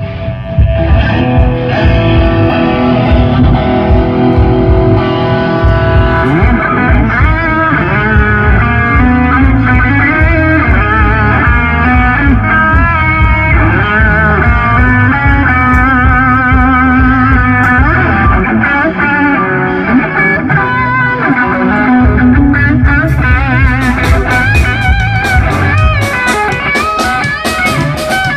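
Live band playing loudly: an electric guitar plays melodic lines over a heavy bass and drum low end. Near the end, fast sharp strokes come in.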